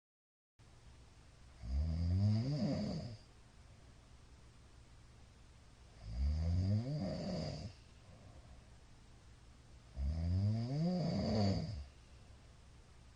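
A middle-aged man snoring in his sleep: three loud snores about four seconds apart, each lasting about a second and a half and rising in pitch as it goes.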